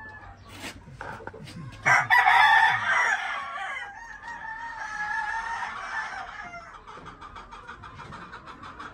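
A gamecock crowing: one long crow that starts about two seconds in and trails off a little after six seconds.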